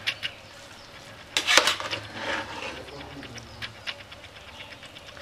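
Metal ladle scraping and clinking against the inside of a pressure cooker pot while cooked biryani rice is stirred. The loudest scrapes come about one and a half seconds in.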